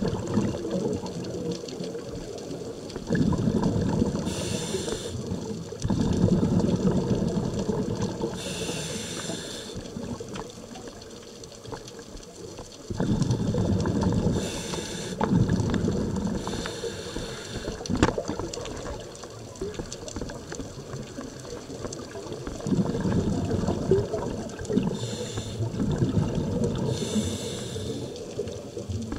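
Scuba diver breathing through a regulator underwater: a short hiss on each inhale and a long bubbling, gurgling rush of exhaust bubbles on each exhale, about six breaths in slow, even rhythm.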